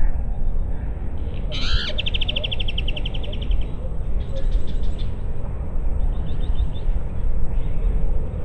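Songbirds trilling, each a quick run of rapid high notes, the first and longest starting about a second and a half in, with shorter trills after it. Under them runs a steady low rumble of wind on the microphone.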